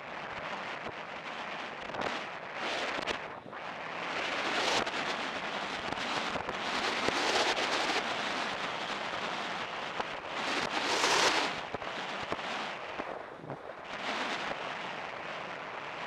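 Wind rushing over a helmet-mounted camera's microphone as the horse moves at speed, swelling and falling in gusts, loudest about eleven seconds in.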